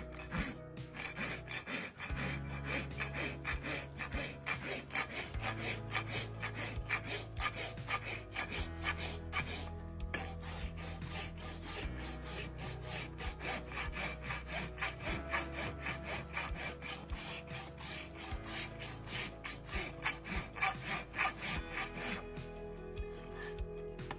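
Farrier's hoof rasp filing the bottom of a horse's hoof in quick, rhythmic back-and-forth strokes, rough steel teeth scraping hard horn, with a short break about ten seconds in.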